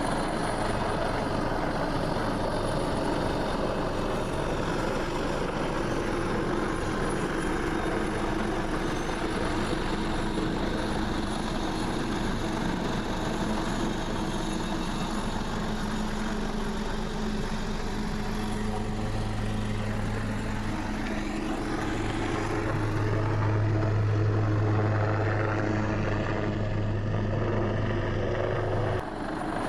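Helicopter running overhead with a steady low rotor drone that grows louder past the middle and eases off near the end, as it works lifting containers.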